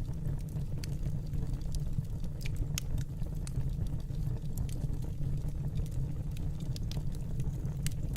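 Wood fire crackling: irregular sharp snaps and pops, several a second at times, over a steady low rumble.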